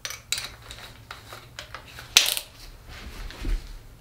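Short clicks and rattles of a cordless drill being handled and a bit fitted into its chuck, with one louder click about two seconds in.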